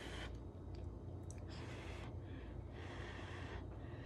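A person breathing through the nose in a few soft breaths while tasting a forkful of mac and cheese, with a faint steady low hum beneath.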